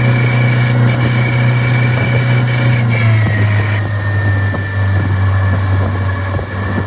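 2020 Mercury 50 hp four-stroke outboard running at about 3,500 RPM with a thin, steady high-pitched squeal over the engine note. About three seconds in the revs ease off slightly and the squeal drops in pitch with them. The owner suspects a bearing in the new motor, three hours into its break-in.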